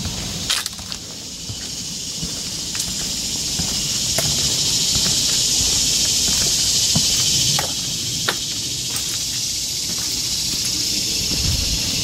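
Steady high-pitched insect buzz in the woods, swelling over a few seconds and dropping off abruptly about seven and a half seconds in, with a few light knocks of footsteps on a wooden boardwalk.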